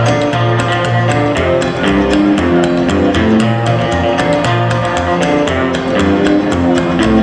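Live rockabilly band playing an instrumental break: upright bass, strummed acoustic guitar and electric guitar, with a steady clicking beat about four times a second.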